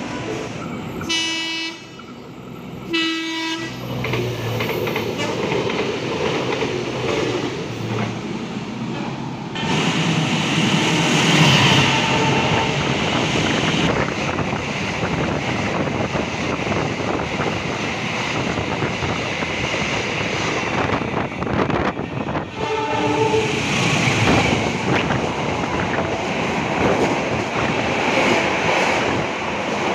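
A train horn sounds two short blasts. About a third of the way in, a passenger train starts passing at speed close by, with steady wheel clatter and rushing noise over the rails. A brief horn sound comes again about two-thirds through.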